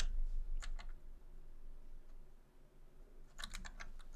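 Computer keyboard typing: two keystrokes about half a second in, a pause, then a quick run of keystrokes near the end.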